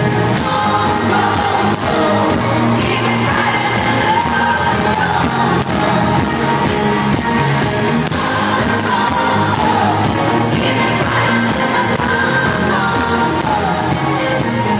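Live pop music played loud at an arena concert, a band with a woman singing over a steady beat.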